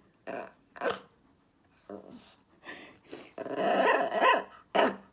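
A dog vocalizing: a few short woofs and grumbles, then a longer, louder wavering call about three and a half seconds in, and one more short call near the end, loud enough that it is being hushed.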